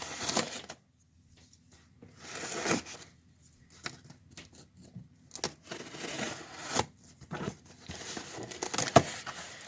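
Subscription box being opened by hand: packaging tearing and crinkling in irregular bursts with short quiet gaps, and a sharp snap about nine seconds in.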